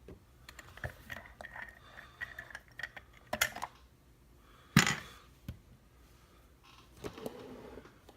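Small metal clicks and taps of lockpicking tools and a just-picked Mul-T-Lock Classic lock being handled, with a cluster of clicks about three and a half seconds in and one sharper knock near five seconds in.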